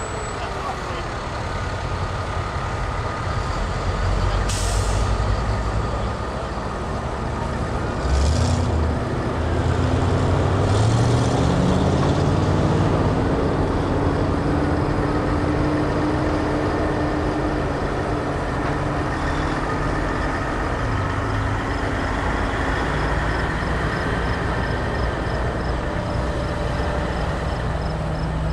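Heavy trucks driving slowly past, their engines running steadily, with short hisses from air brakes about four and a half, eight and eleven seconds in. Between about eight and thirteen seconds a truck engine rises in pitch as it pulls forward.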